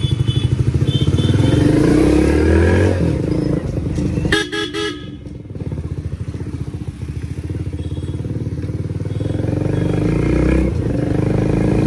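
Hero Splendor's single-cylinder four-stroke engine running through a newly fitted Yamaha-style silencer as the bike is ridden: a fast, even exhaust beat that rises in pitch as the bike pulls away, eases off about five seconds in, then builds again.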